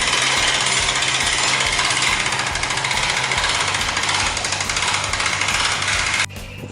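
A machine running loud and steady with a fast rattling pulse, cutting off abruptly near the end.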